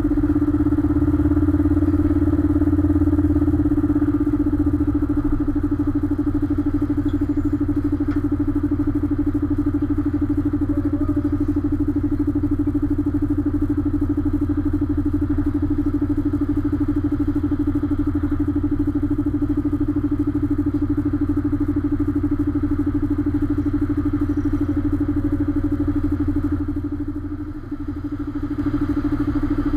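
A container truck's diesel engine running steadily at low speed, picked up by a camera mounted on the cab: a constant drone with a deep hum beneath it. The sound drops briefly near the end, then comes back.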